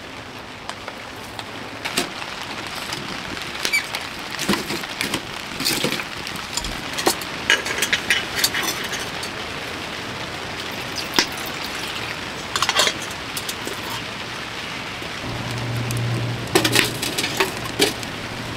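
Steady rain falling on a tent tarp, with scattered clinks and knocks of metal camp cookware as water is poured into a metal pot and the pot is set on a small wood stove.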